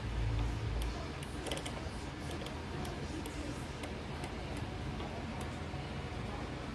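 Light, irregular clicking from the timer dial of a Breville countertop convection oven being turned, setting about 15 more minutes, over the oven's steady low hum. There is a soft low bump right at the start.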